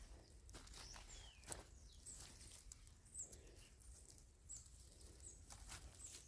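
Near silence with faint ambience: a few short, high chirps falling in pitch, about a second apart, and soft scattered rustles.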